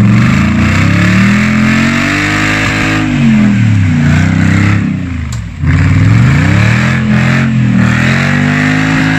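Nissan Patrol's swapped-in V8 engine revving hard under load and easing off about three times as the 4x4 claws up a muddy slope.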